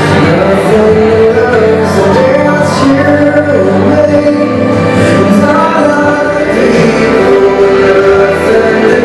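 A recorded song playing: a sung melody over full instrumental backing, loud and unbroken.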